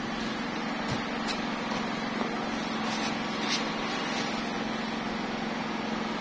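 Steady mechanical hum with a constant low tone, with a few faint clicks from the packaging being handled.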